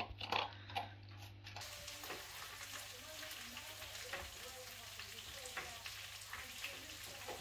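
Kitchen knife tapping on a chopping board as a vegetable is sliced, a few irregular strokes over a steady hiss. Quick clicking in the first second and a half.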